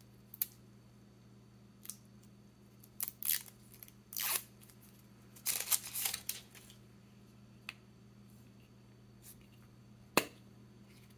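A square glue stick's packaging being torn and peeled off by hand, in a few short crinkling, tearing rustles. A single sharp tap comes near the end.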